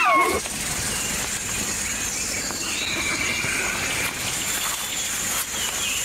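Forest ambience: a steady high insect drone over a low background hiss. About halfway through comes one faint, drawn-out wavering animal call.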